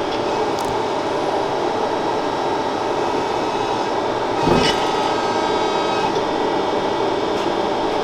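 A workshop machine running steadily, a continuous whirring noise with a short knock about halfway through.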